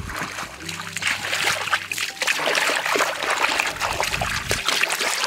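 Splashing and sloshing of shallow muddy water as a person wades and gropes through the mud by hand, heaviest in the middle stretch.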